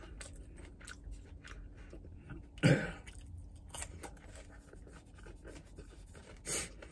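Close-up chewing of a burger and fries, with small wet mouth clicks and smacks. About three seconds in there is one short, louder throat or voice sound, with a smaller one near the end.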